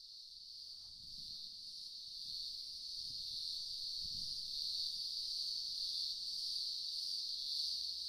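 Cicadas calling together in a continuous high-pitched drone that fades in and grows louder over the first few seconds, then holds steady.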